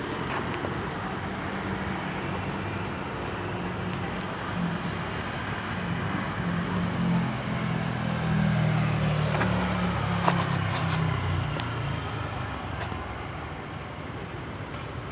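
Road traffic noise: a steady hiss with a low engine rumble that builds through the middle and fades toward the end, with a few light clicks.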